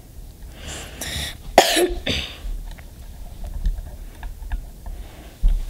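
A boy coughs and clears his throat twice, about a second in, the second louder, followed by a few faint scattered clicks.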